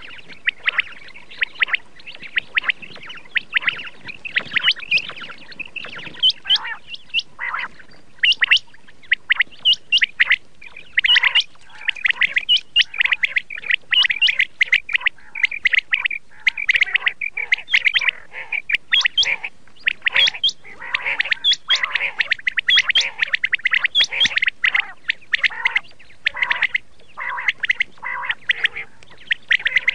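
Common quail calling over and over: quick runs of short, sharp notes with brief pauses between the runs.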